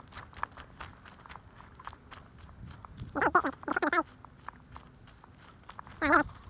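Footsteps crunching on gravel, a faint run of small clicks. About three seconds in come two short wavering calls, and a third near the end; these are the loudest sounds and their source is not clear.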